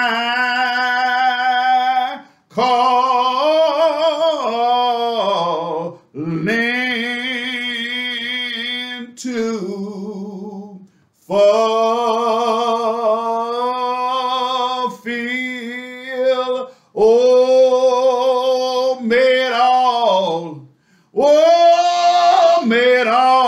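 A man singing a slow hymn solo and unaccompanied, in long held notes with wide vibrato, pausing briefly for breath every few seconds.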